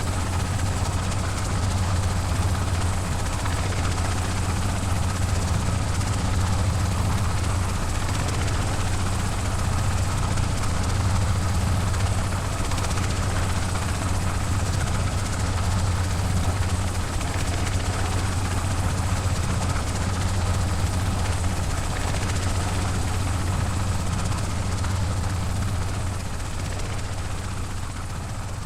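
Helicopter running steadily, its rotor and engine giving a constant low drone, with reverb added. The level eases off slightly near the end.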